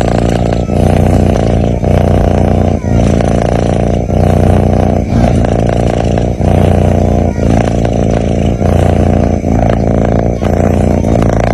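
A sleeping cat's loud, rumbling breathing noise, continuous and rhythmic, with a short break about once a second as each breath turns.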